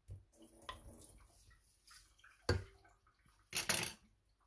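Wooden spatula stirring chicken adobo in a nonstick pot: faint stirring sounds, a sharp knock against the pot about two and a half seconds in, and a short, louder scrape near the end.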